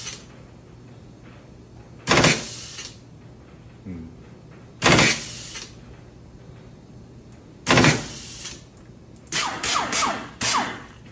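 Pneumatic oil pulse tool run on a torque tester in short bursts under a second long, three times about three seconds apart. Near the end come several quicker, shorter bursts whose pitch falls as the motor spins down.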